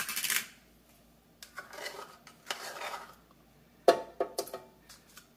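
Utensil scraping and clinking as butter is scooped out of a small cup into a bread-machine pan, with a short rustle at the start, a stretch of scraping, then a sharp knock and a few light clicks near the end.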